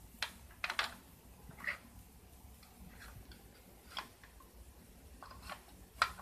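Small wooden blocks clicking and knocking against each other and against the plastic front-loader grapple of a toy John Deere tractor as they are scooped up. The clicks are faint and scattered, a few close together about a second in.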